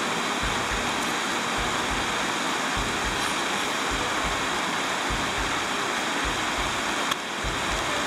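Wind blowing across the microphone: a steady rushing hiss with irregular low buffeting thumps, and a single small click about seven seconds in.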